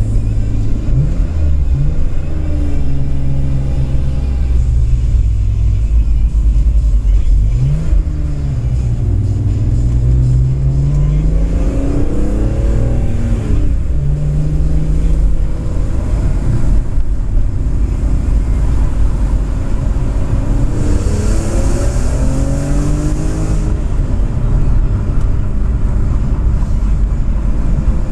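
BMW M3 engine heard from inside the cabin, accelerating hard: its pitch climbs and drops back several times as it changes up through the gears, over steady road and tyre rumble.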